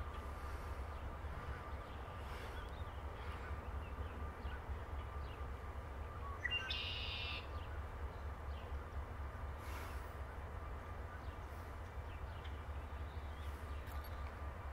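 Steady low outdoor rumble with one short bird call about six and a half seconds in that rises and then holds for under a second.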